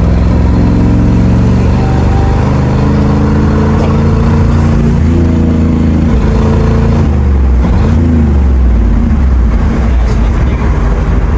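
1991 GMC Sierra pickup's engine running under way, with road noise; the engine pitch steps and glides up and down as the truck changes speed.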